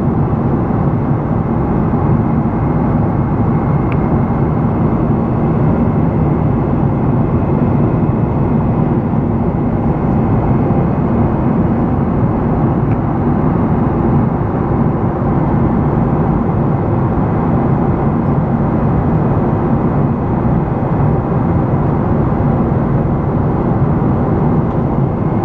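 Steady cabin noise of a Boeing 777-300 airliner at cruise altitude, heard from a window seat beside the wing: engine and airflow noise as an even, low-pitched hiss that does not change.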